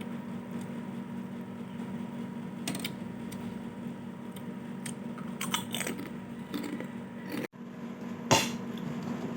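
A few short clinks and clicks of a spoon and dishes, the sharpest near the end, over a steady low hum.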